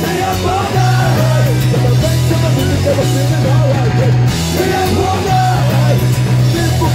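Live punk rock band playing: electric guitars, bass and drum kit, with a lead vocalist singing over them.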